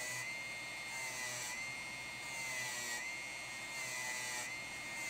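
Dremel rotary tool running with a steady high whine, its pitch dipping briefly every second or so as the spinning bit is pressed against the end of a coax cable, cleaning the jacket and braid area so solder will stick better.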